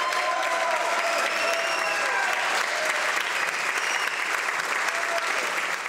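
Members of Parliament applauding: a steady mass of clapping from many hands, with voices mixed in among it.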